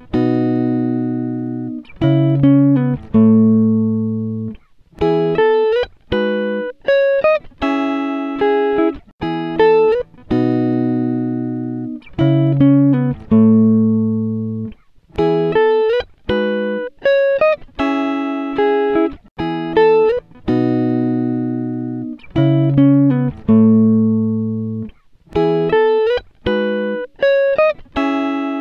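Background music: a plucked-string melody, notes starting sharply and dying away, in short phrases with brief pauses between them.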